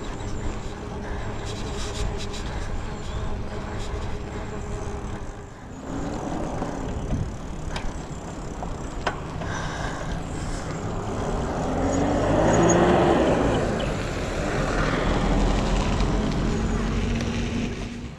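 Wind and road noise from a moving bicycle, picked up by a camera on the handlebars. The noise swells to its loudest about twelve seconds in.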